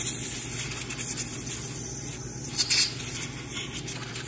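Compressed air from a blow gun hissing through the passages of a snowmobile's Mikuni carburetor, in short blasts, the strongest a little past halfway, over a steady low hiss.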